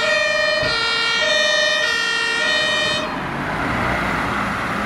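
German fire engine's two-tone siren (Martinshorn), alternating between a low and a high tone about every two-thirds of a second. It cuts off suddenly about three seconds in, leaving the engine and tyre noise of the approaching vehicle.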